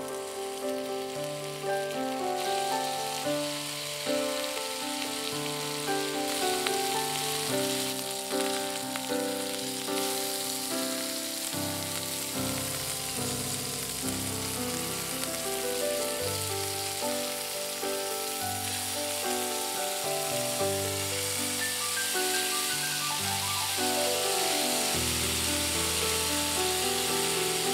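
Paneer tikka skewers with onion and capsicum sizzling in hot oil in a frying pan, the sizzle growing stronger toward the end. Background music with a melody of held notes plays over it.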